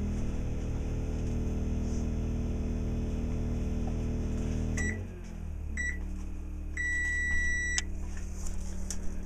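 Microwave oven running on generator power with a steady hum that cuts off about five seconds in. Then come two short beeps and one beep about a second long. A lower steady hum, the Champion inverter generator, runs on beneath.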